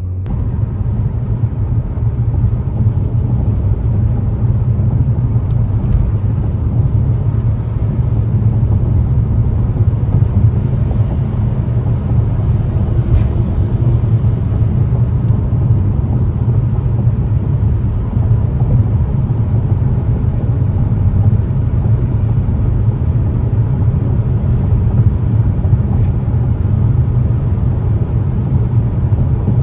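Steady low rumble of a truck on the move: engine and road noise that holds even throughout, with a few faint clicks.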